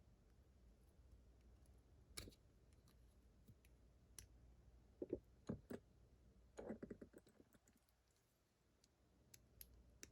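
Faint, scattered small metallic clicks and ticks as tools work at the retaining clip of a Kryptonite padlock during disassembly, with a quick cluster of clicks in the middle.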